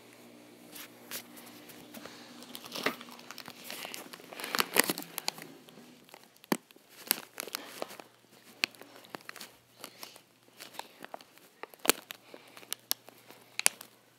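Close handling noise: irregular crinkling and rustling with many sharp clicks and crackles, loudest about five seconds in.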